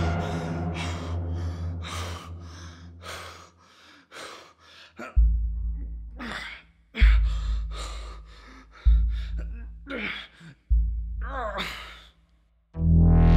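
A man's gasping, sighing breaths over a film score of deep booms that come about every two seconds and each fade away. A loud earlier hit dies away at the start, and loud music cuts in near the end.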